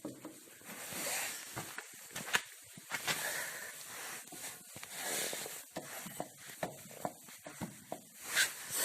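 Hands handling a new anti-roll bar link and its rubber bushing: irregular rustling and scraping with sharp clicks of metal parts, a few of them loud.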